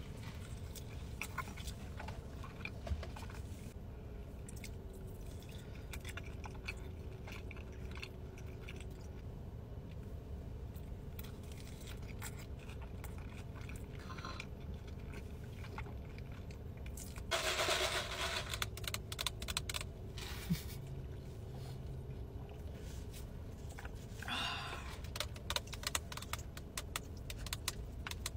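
Close-up eating sounds: chewing loaded fries and a plastic fork scraping and clicking in a foil takeout tray, over a steady low background hum. A louder burst of rustling comes about two-thirds of the way through, and a shorter one a little later.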